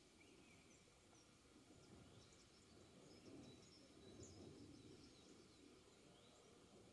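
Near silence outdoors: a faint low background rumble, with scattered short bird chirps throughout.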